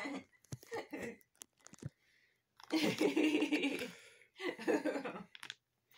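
Laughter in two bursts, the first starting about two and a half seconds in and the second just after it, with a few faint clicks before.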